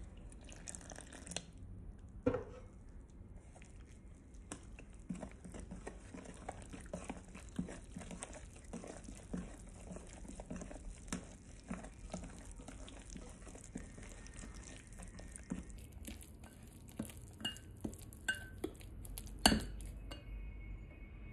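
Steel spoon stirring thick gram-flour batter in a glass bowl, with frequent light clinks and scrapes of the spoon against the glass and a sharper clink near the end. Water pours into the flour briefly at the start.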